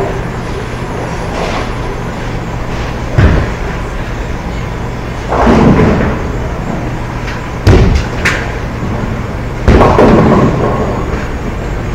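Bowling alley sounds: a steady low rumble of the lanes and ball return, broken by several sudden thuds and crashes of balls and pins.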